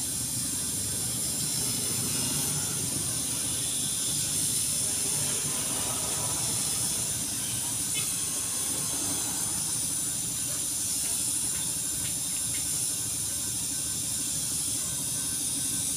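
Small electric motor-driven grinding wheel running while a rubber bushing is held against it and ground to shape, a steady high-pitched hiss with a low hum under it.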